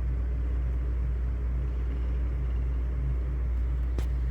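Steady low hum of grow-room equipment running, with one sharp click about four seconds in.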